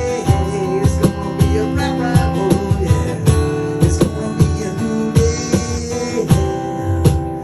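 Live rock band playing an instrumental passage: strummed guitar over a steady drum beat.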